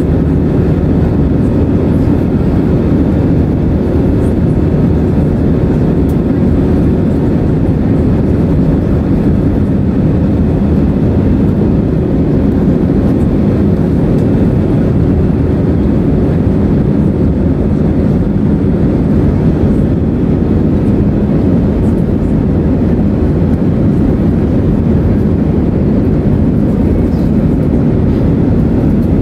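Steady cabin noise inside an Airbus A320-212 climbing after takeoff: a low, even rumble from its CFM56 engines at climb thrust and the airflow over the fuselage, with a faint steady hum running through it.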